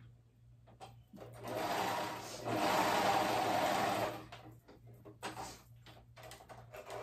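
Sewing machine stitching a hem in two short runs, with a brief pause between, stopping about four seconds in. A few small clicks from handling the fabric follow.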